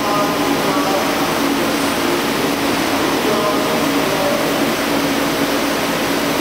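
Steady mechanical din of an enclosed CNC machine running, heard through its guarding, with faint voices in the background.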